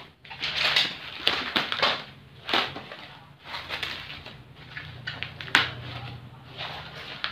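Plastic bubble wrap around a parcel being cut and pulled open by hand: irregular crinkling and crackling with sharp rustles.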